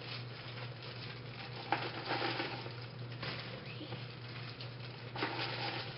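Dry cereal mix of Corn Pops, Raisin Bran and Mini-Wheats pouring from a plastic container into plastic zip-top snack bags, a crackling rattle and rustle of pieces and crinkling plastic, with louder clatters about two seconds in and again near the end. A steady low hum runs underneath.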